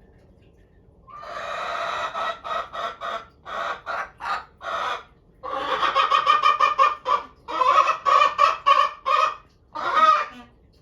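Araucana chicken calling: a longer call about a second in, then runs of short, rapidly repeated calls in several bursts, with one last call near the end.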